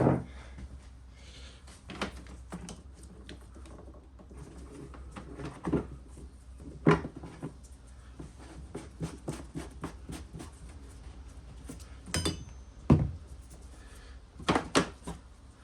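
Scattered knocks, clicks and clatter of hand tools and parts being handled while reassembling the jet ski's engine bay, with a few sharper knocks about 7 and 13 seconds in, over a steady low hum.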